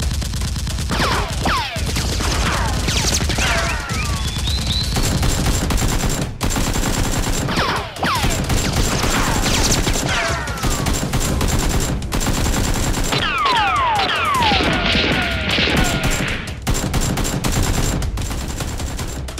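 Dubbed-in automatic gunfire sound effects in rapid sustained bursts, with repeated falling whistles laid over the shots, densest near the end.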